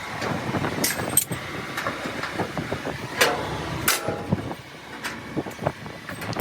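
Several sharp knocks and clanks, a few ringing briefly, over a steady background rumble.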